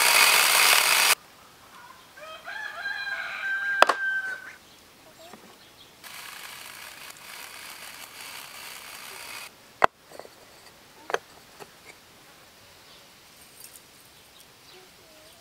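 A chainsaw running, cut off abruptly about a second in. A rooster then crows once for about two seconds. Later comes a steady hiss of about three and a half seconds while olive oil pours into a glass bowl, followed by a couple of sharp clicks.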